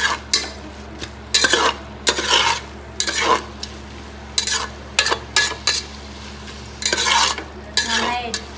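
A metal ladle scraping and stirring onions, vegetables and ginger-garlic paste as they fry in a stainless steel pot, in irregular strokes, with a light sizzle between them. A steady low hum runs underneath.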